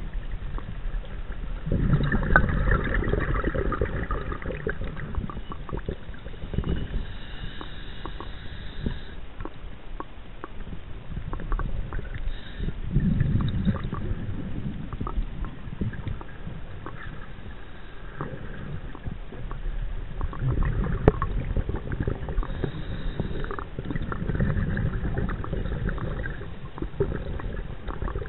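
Scuba diver's exhaled breath bubbling from the regulator, heard underwater through a chest-mounted camera: several long swells of bubbling a few seconds each, with faint clicks and crackle between them.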